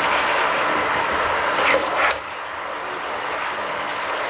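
Chicken and potato curry sizzling in a nonstick pan while a metal spatula stirs a roasted coconut-and-cashew paste in, with a few scrapes against the pan. The sizzle is steady, a little quieter from about two seconds in.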